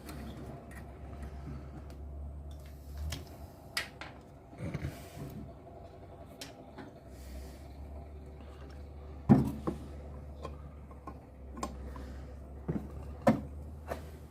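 Intermittent clinks and knocks of hand tools on metal as the brake caliper carrier bolts are worked on, over a steady low hum. The loudest knock comes about nine seconds in, with another sharp one a few seconds later.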